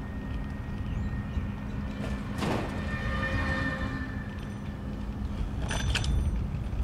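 Riding a bicycle: a steady low rumble of wind and tyre noise. A short ringing sound comes about two and a half seconds in, and a brief rattle comes near the end.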